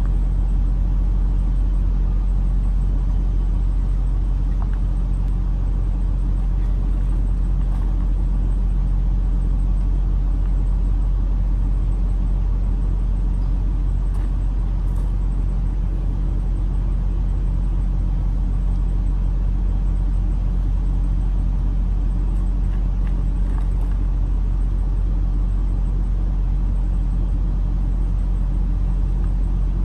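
Steady low rumble of an idling engine, unchanging throughout.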